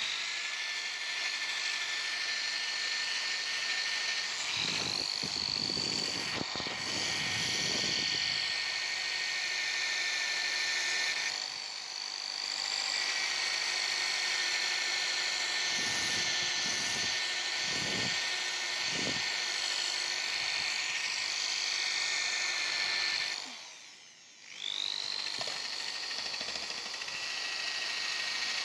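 Handheld electric drill spinning a small wire brush against a rusty steel wrench to strip the rust. The motor whines steadily, eases off briefly about 11 seconds in, stops around 24 seconds and starts again a second later. Now and then the bristles rasp harder against the metal.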